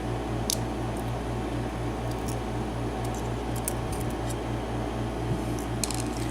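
Light metallic clicks and small taps of padlock pins and the core being handled and shaken out of an Abus six-pin padlock during disassembly, scattered and irregular, over a steady low hum.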